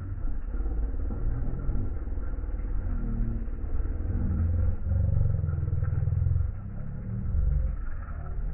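Wind buffeting a phone's microphone: an uneven low rumble, loudest about five to six and a half seconds in.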